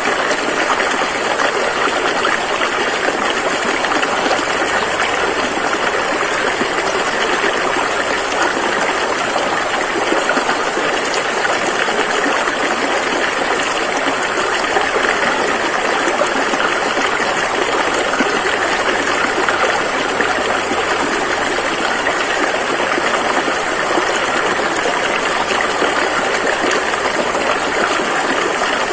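River water rushing and flowing over rocks, a steady, even sound.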